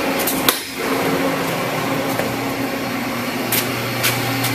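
Fadal CNC machine just switched on, its cabinet fans and electrics running with a steady whirring hum. There are a few sharp clicks, about half a second in and twice near the end, and a lower hum joins about three and a half seconds in.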